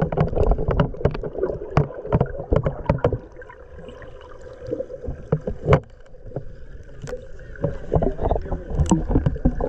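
Water splashing and slapping around a small boat, with many irregular knocks against the hull over a low rumble.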